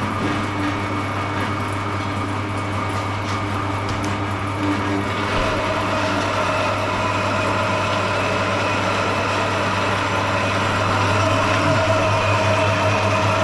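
Soybean dehulling machine running steadily with a low motor hum while soybeans are milled to strip their skins; about five seconds in its sound changes as a higher, steady tone joins the hum.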